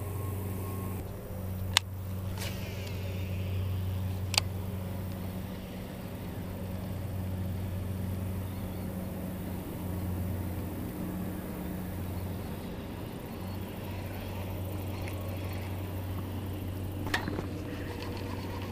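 Steady low drone of construction machinery running and idling, with three sharp clicks: one about two seconds in, one about four and a half seconds in, and one near the end.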